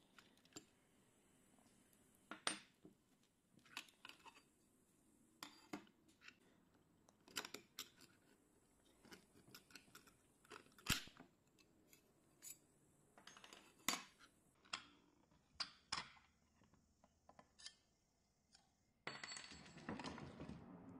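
Small metallic clicks and clinks of a screwdriver and fingers working on a disassembled hard drive, with the metal platters and small parts tapping against the drive casing, scattered irregularly. A steady low noise comes in near the end.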